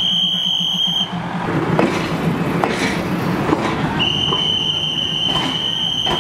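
Passenger train rumbling with scattered clicks and clatter. A long, steady, high-pitched whistle sounds twice, once ending about a second in and again from about four seconds in.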